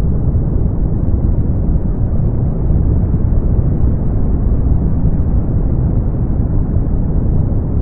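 Brown noise: a steady, deep rushing noise, heaviest in the bass and with no high hiss, holding an even level throughout.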